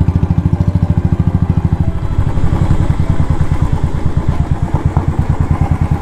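Motorcycle engine idling with a quick, even exhaust beat.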